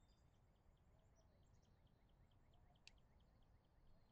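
Near silence: faint outdoor ambience with faint high chirps repeating about four times a second, and a single click about three seconds in.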